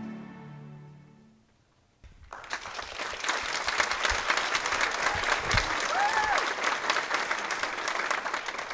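Film soundtrack music fading out, then after a short pause an audience applauding, with one short cheer from someone in the crowd about six seconds in.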